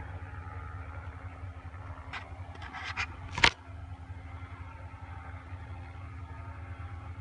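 Paramotor engines running with a steady drone. A few knocks come between about two and three and a half seconds in, the last a sharp thump that is the loudest sound.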